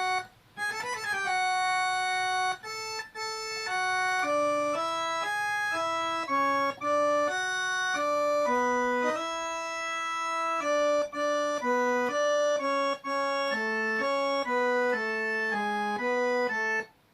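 Electronic keyboard playing a slow single-note melody, a chromatic run stepping key by key, with short gaps between the held notes.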